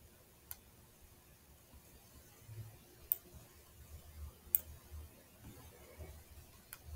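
Faint computer mouse clicks, four of them a second or two apart, over a low background hum.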